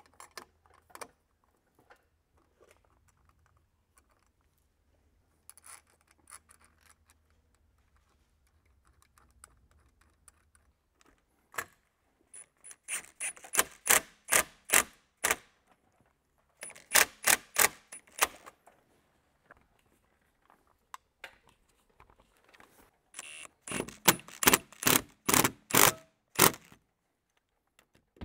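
Sharp metallic clicking from a doorknob lockset being fitted to a steel door, in three runs of about three or four clicks a second, the last the loudest.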